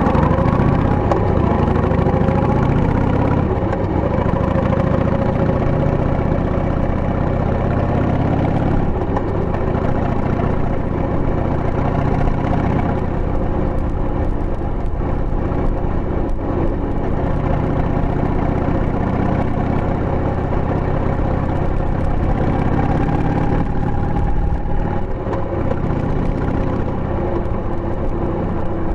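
Harley-Davidson Sportster 883's air-cooled Evolution V-twin running under way, its exhaust going out through a tapered muffler with the baffle fitted. The engine note holds fairly steady, a little louder at the very start.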